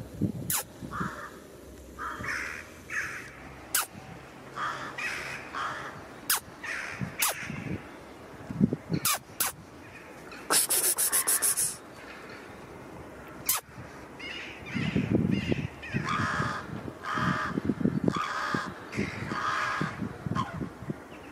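Crows cawing repeatedly in short series, with scattered sharp clicks.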